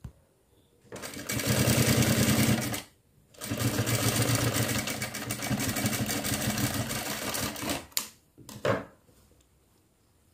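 Industrial single-needle sewing machine stitching cotton fabric in two runs, a short one of about two seconds and then a longer one of about four and a half seconds, with a brief stop between. A sharp click and a short burst follow as it stops.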